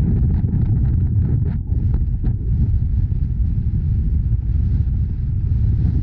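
Wind buffeting the microphone: a loud, steady low rumble, with a few faint clicks.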